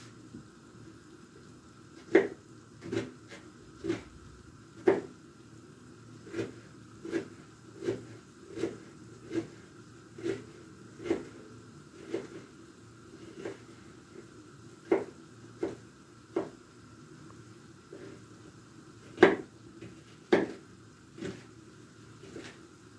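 Kitchen knife chopping an onion on a wooden cutting board: a short knock each time the blade meets the board, a little more than one a second, with a brief pause before the loudest knock.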